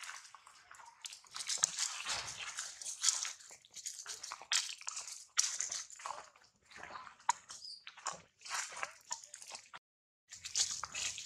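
Dry leaf litter crunching and rustling in irregular bursts, like footsteps moving quickly through dry leaves, with short sharp crackles.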